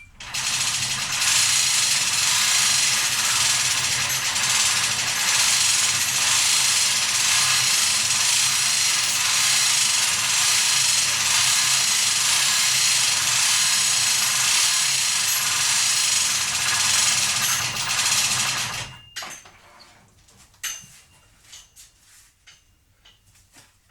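An electric power tool running steadily with a loud whirring hiss for about nineteen seconds, then switching off, followed by a few light clicks and knocks.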